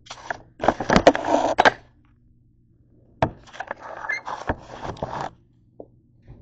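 Handling noise close to the microphone: rustling with a few sharp knocks as the camera is moved and bumped on a hard countertop, in two bursts about two seconds apart.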